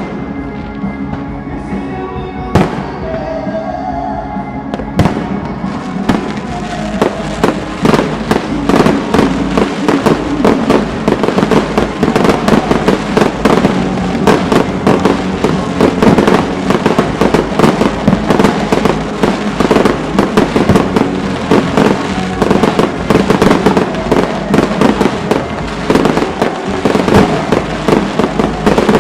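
Fireworks going off over music: a few single bangs at first, then from about six seconds in a dense, rapid barrage of bangs and crackles.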